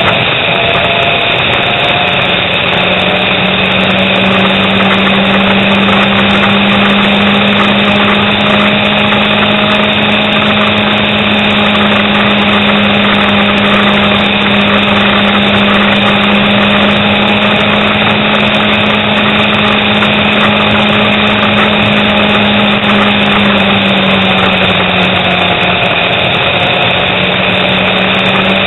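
Motorcycle engine running at a steady cruise under a loud rush of wind and road noise. The engine note holds steady, dips a little a few seconds before the end, then picks up again.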